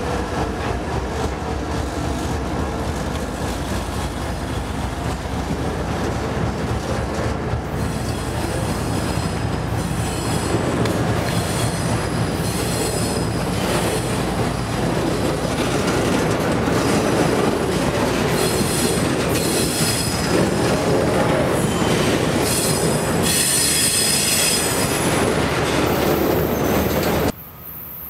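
Freight train of autorack cars rolling past close by: steady wheel-on-rail rumble, with high-pitched wheel squeal coming and going from about a quarter of the way in and growing louder. It cuts off suddenly near the end.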